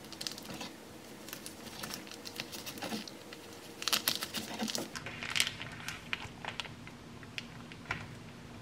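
Plastic zip-top bag crinkling as the back of a kitchen knife is pressed across the flattened minced filling to score it into portions, with light clicks of the blade. The crinkles come thick in the first half and grow sparse after that.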